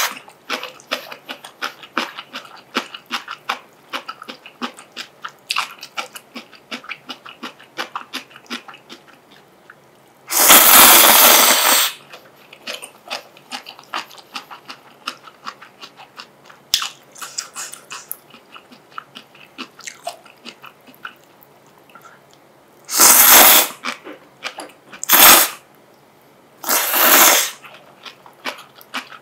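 A person chewing instant ramyun noodles with steady wet mouth clicks, broken by four loud slurps: a long one about ten seconds in, then three shorter ones near the end.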